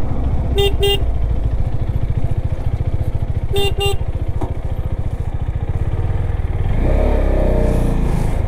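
KTM 390 Adventure's single-cylinder engine running under way with wind rush, while a motorcycle horn gives two quick double toots, about half a second in and again about three and a half seconds in. Near the end the engine sound grows louder and its note changes.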